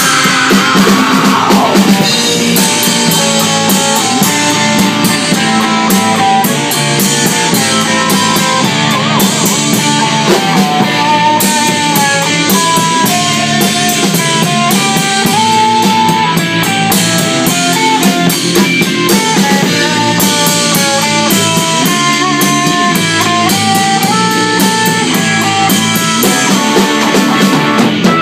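Live rock band rehearsing an instrumental passage: electric guitars, electric bass and drum kit playing together loudly, with a melody line moving above the chords. A pitch slides down at the very start.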